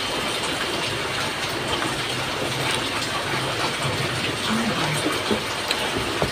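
Steady rain falling, an even hiss with a few faint clicks over it.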